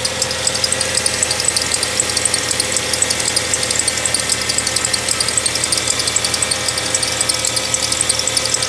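Ford Fusion engine idling with a rapid, even chirping from the serpentine belt drive, really noisy. The chirp comes from an accessory pulley with a dried-out bearing.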